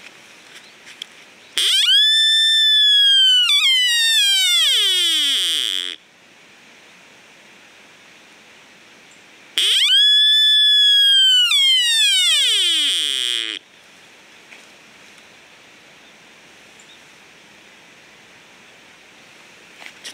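Deer call (shikabue) blown twice to imitate an Ezo sika deer and lure one in: each call is a loud high whistle about four seconds long that holds its pitch, then slides steadily down with a catch partway through.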